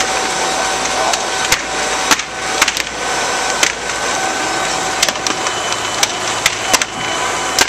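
A fully involved house fire crackling, with a dozen or more sharp, irregular pops over a steady noise. A fire engine's motor runs underneath.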